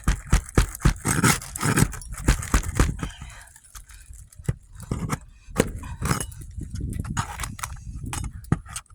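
Metal shingle snake tool scraping and knocking under asphalt roof shingles as it pries out nails: a run of irregular sharp clicks and knocks, busiest in the first three seconds and sparser after.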